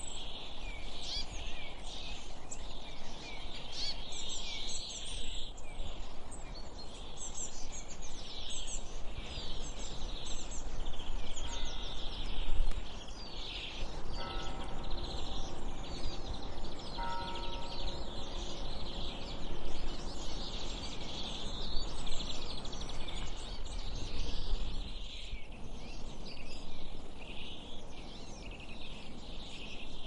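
A chorus of many songbirds chirping and singing over a steady low rumble, with a faint held tone partway through.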